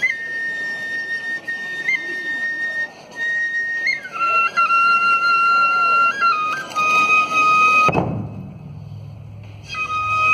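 A shinobue bamboo flute plays long held notes that step up and down in pitch. About eight seconds in, a single heavy stroke on a large ōdaiko drum leaves a low ring, the flute breaks off, and it comes back near the end.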